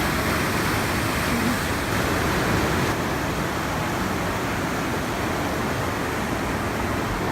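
Steady, even rush of a river waterfall, the Temperance River's water pouring through its gorge.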